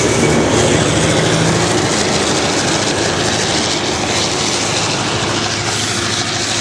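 Heavy diesel truck running loud and steady, with engine and tyre noise, easing off a little towards the end.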